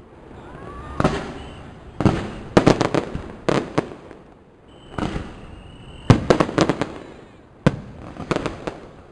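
Fireworks going off in clusters of sharp bangs and cracks, a new cluster every second or so, with a few quick reports in each.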